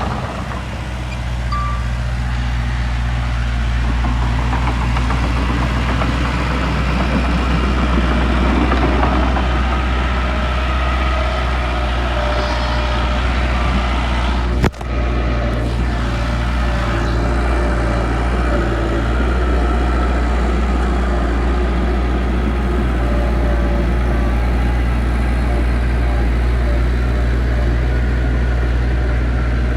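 Heavy diesel earthmoving machinery running steadily with a deep, constant engine drone. A sharp click with a momentary drop in level comes about halfway through.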